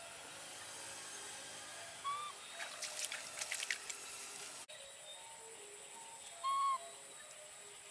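A baby monkey gives two short, high, arched coo calls, about two seconds in and again louder near the end. Between them, a hand scrapes and rustles in mud and grass at a frog hole.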